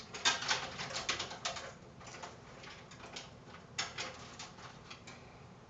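Bundled power-supply cables being stuffed into the bottom of a computer case: a rapid run of plastic rustling and clicking, which thins out to a few scattered knocks after about two seconds.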